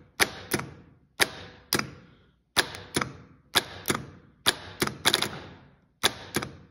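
Starter solenoid on a Kawasaki mower engine's starter clacking again and again as it is energised, in groups of two or three sharp clicks about once a second, each with a short ringing tail; the starter motor does not spin. The plunger pulls in, but the contact disc inside is not passing power to the motor: the solenoid is faulty.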